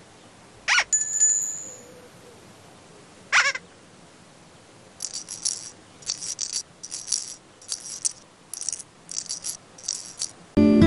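Children's TV sound effects: two quick whooshing glides about a second and three and a half seconds in, the first followed by a ringing bell-like tone. Then comes a string of short jingly rattles, about one every two-thirds of a second. Plucked-string music starts at the very end.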